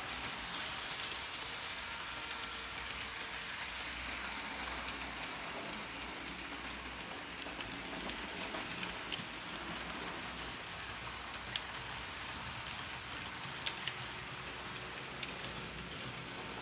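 Model trains running on a small layout: a steady hiss of wheels on the track and small motors, with a few sharp clicks in the second half.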